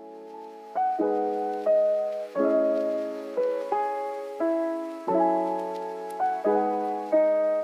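Background piano music: a slow melody over chords, each note struck and fading.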